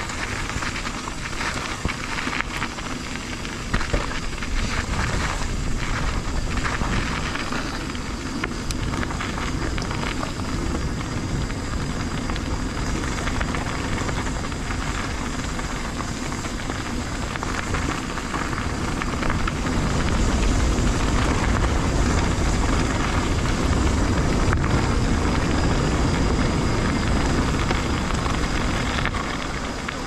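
Full-suspension mountain bike rolling downhill over a gravel trail: tyres crunching on gravel with occasional small knocks, and wind rumbling on a chin-mounted GoPro. The wind gets louder about two-thirds of the way through as the bike picks up speed.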